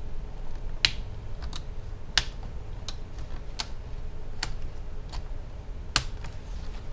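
Irregular sharp plastic clicks and ticks from a small flathead screwdriver prying at the plastic end cap and screen bezel of an HP Pavilion G6 laptop lid, the loudest snaps about a second, two seconds and six seconds in.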